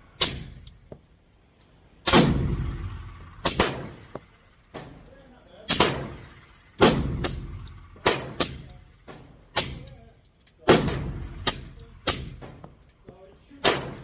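Pistol gunfire: a Glock 19X in 9mm, fitted with a Banish 30 suppressor, fires about a dozen shots at an uneven pace of roughly one a second. Each shot has a long echoing tail, with fainter sharp cracks in between.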